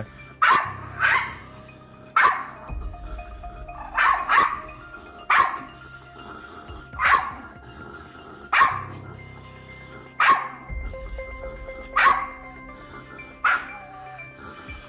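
Shiba Inu barking aggressively in short, sharp barks, about a dozen, one every second or two: the dog is in attack mode, trying to bite the hand held up to it.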